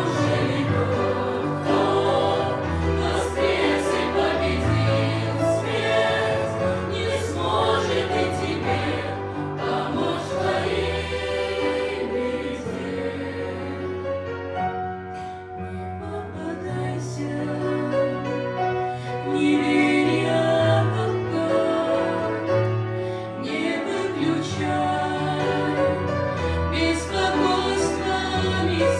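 Choir singing a slow Christian hymn, with sustained held chords over a low bass line.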